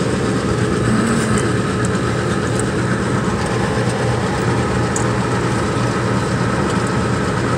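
A steady, loud machine drone with a low hum, and a few faint metallic clicks.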